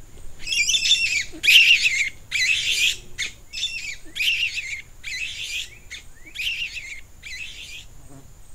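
A series of about ten shrill squawking calls in quick succession, each short and high-pitched with many overtones, fading a little toward the end.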